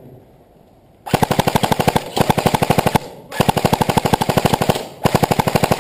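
An airsoft electric rifle firing on full auto, starting about a second in, in long bursts of roughly fifteen rapid clacks a second with short pauses between them.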